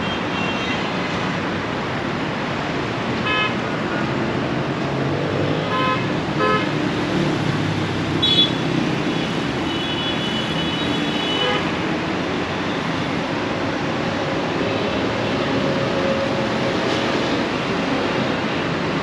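Road traffic passing steadily, with several short car-horn toots, the first about three seconds in and two more close together around six seconds.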